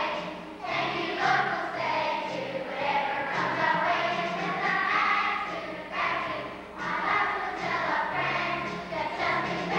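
A large children's choir singing together over an instrumental accompaniment, with a bass line moving in repeating steps underneath.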